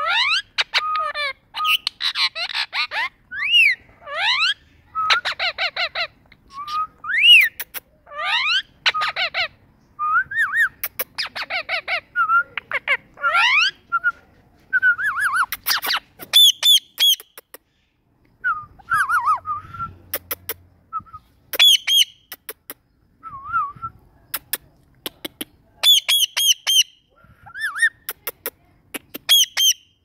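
Male Indian ringneck parakeet calling: a rapid string of short rising whistles and chirps, then sparser, higher calls in the second half.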